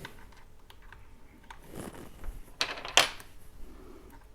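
Small metal and plastic 3D-printer extruder parts and screws being handled: a few scattered light clicks and clacks, the loudest pair about two and a half to three seconds in.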